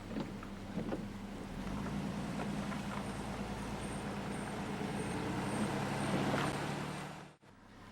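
Steady hum of a car's engine and road noise, heard from inside the car while driving; it cuts out abruptly near the end.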